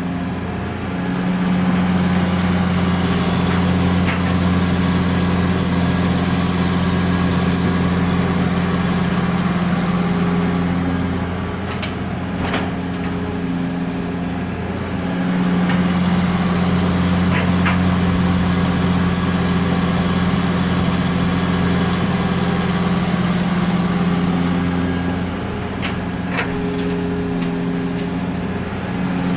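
Diesel engine of a Hitachi long-arm excavator running steadily. It swells and eases in long cycles of roughly ten seconds as the hydraulics take load and let off while it loads empty oil palm fruit bunches. A few faint ticks come through now and then.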